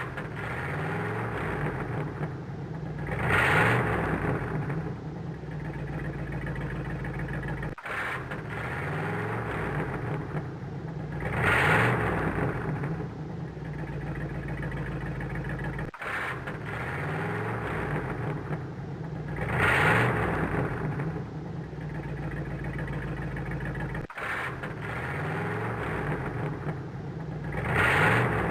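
2007 Saturn Outlook's V6 engine revving, its pitch rising and falling as it swells to a loud peak and eases off again. The same roughly eight-second clip plays back to back, four times, with a brief dropout between passes.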